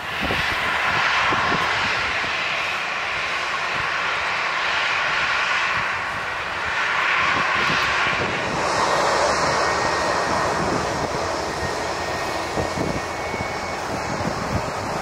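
Boeing 757's twin jet engines running at taxi power as the airliner turns and taxis, a steady rushing that swells and eases a few times.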